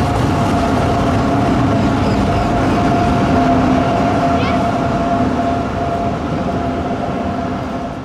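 Tram 2000 tram rolling past close by and pulling away along the street rails: a low rumble with a steady whine over it, fading over the last few seconds as it moves off.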